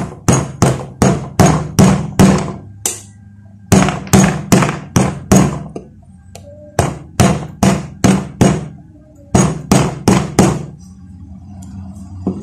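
Hammer tapping the end of a PVC pipe driver to press a new bushing into an electric fan's aluminium bushing holder. About two dozen gentle, ringing taps come in four quick bursts of about three a second, with short pauses between them.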